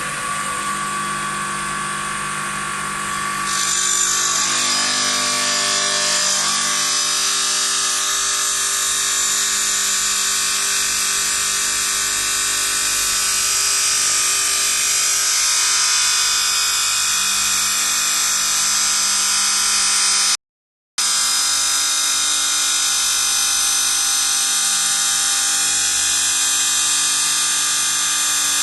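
A Jinan Ganger 4-axis CNC bridge saw running, its blade cutting stone with a steady, high-pitched grinding whine. The sound grows louder and sharper about three and a half seconds in. It breaks off completely for about half a second around twenty seconds in.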